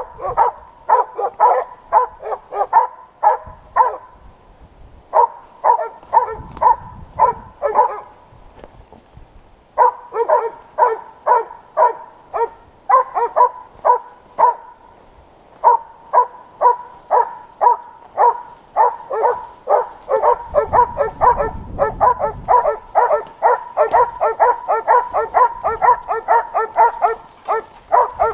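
Boar-hunting dogs baying, giving tongue on the hunt in rapid runs of about three barks a second, with a few short pauses.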